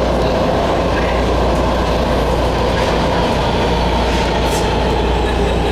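Washington Metro railcar running along the rails, heard from inside the car: a steady, loud rumble of wheels and running gear, with some rail clatter.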